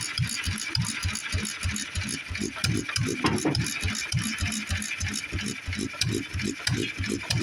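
International Harvester Type M stationary engine running and driving a belt-driven line shaft, with a steady, even beat of about five strokes a second.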